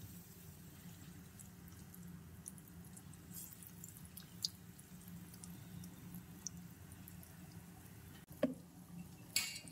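Faint, scattered pops and crackles of maida bonda batter frying in hot coconut oil over a low steady hum, with two louder sharp knocks near the end.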